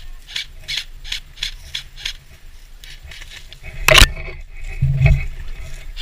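Footsteps scraping and crunching on rough ground, about three a second, then one loud sharp knock about four seconds in.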